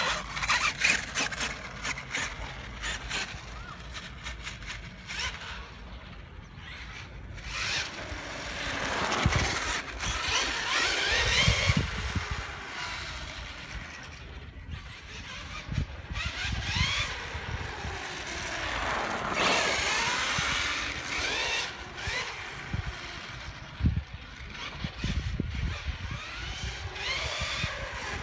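Traxxas T-Maxx RC monster truck's electric motor and spur-and-pinion gears whining, the pitch rising and falling as the truck speeds up and slows over several runs, with scattered clicks. The owner suspects a gear mesh that is too tight, with the pinion pressed hard against the spur gear.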